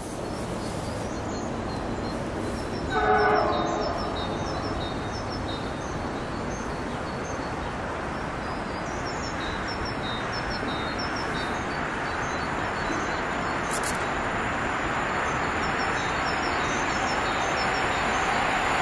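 Passenger train approaching on the rails: a steady rumble that grows slowly louder, with one short train horn blast about three seconds in.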